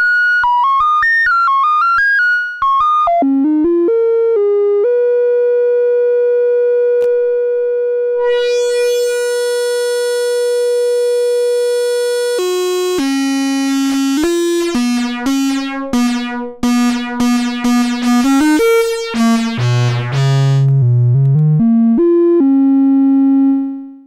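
Ad-vantage 03m DIY analog synthesizer playing notes while its envelope 1 CV output is tried out. Quick stepping notes give way to one long held note whose tone turns much brighter about eight seconds in. Then comes a run of short, bright notes and some lower ones, and a final held note that cuts off suddenly.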